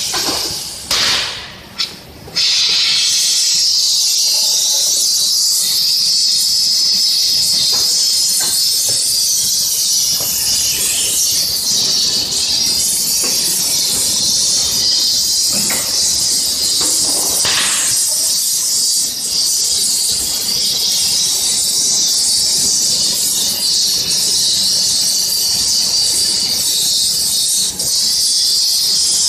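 Gas welding torch hissing steadily and loudly, starting suddenly about two seconds in after a few short bursts of hiss, with a couple of brief knocks midway.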